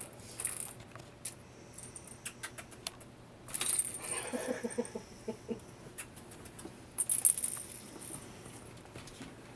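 A pet gray squirrel scrabbling in a wicker basket: claws scratching and knocking on the wicker, with small plastic toy balls rattling against it. Irregular clicks and scuffles, with louder flurries about three and a half seconds in and again about seven seconds in.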